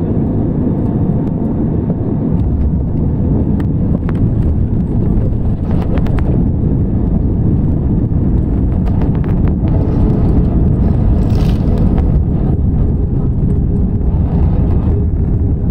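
Loud, steady rumble inside the cabin of an Airbus A321 on its landing roll: the engines running in reverse thrust and the wheels on the runway, swelling a little about two-thirds of the way through.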